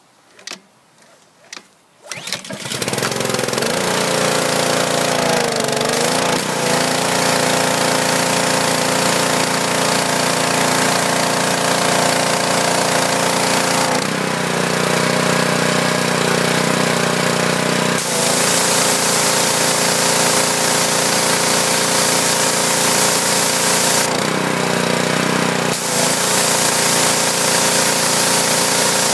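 Pull start of the Honda GCV160 single-cylinder engine on a Homelite 2700 psi pressure washer: a few short clicks, then it catches about two seconds in and runs steadily with the hiss of the high-pressure water spray. The pump is spraying normally again now that the clogged tip has been cleared. The engine note and the hiss shift a few times, around the middle and near the end.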